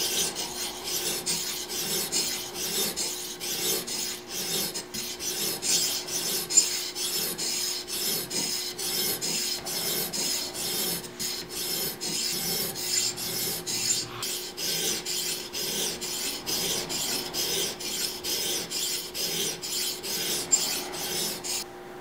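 Edge Pro half-inch sharpening stone stroked back and forth along the serrated edge of a pair of poultry shears, a gritty scraping at about two strokes a second that stops near the end.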